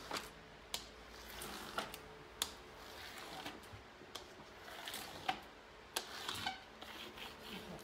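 A plastic applicator tool worked over a rub-on decor transfer on a mirror: soft rubbing with scattered light clicks and taps as it is pressed down and lifted.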